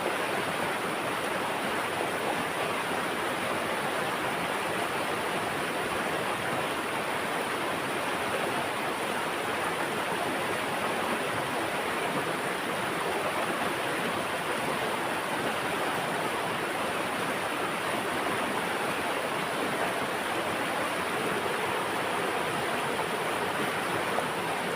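Running water rushing steadily, a constant even hiss with no pauses or changes.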